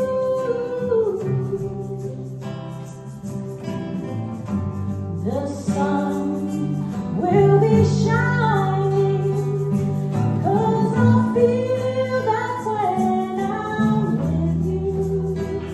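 A woman singing a slow, sustained melody to guitar accompaniment with steady bass notes underneath.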